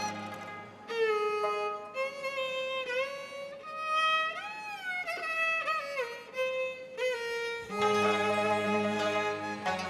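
Cantonese opera accompaniment: a solo bowed string instrument plays a sliding, ornamented melody, and the full ensemble comes back in near the end.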